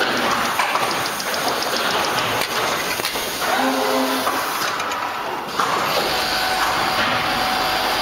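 Automatic terry-towel label-sewing machine line running: a steady, dense mechanical clatter and hiss. A short pitched buzz sounds about three and a half seconds in, and a steady whine joins at about six seconds.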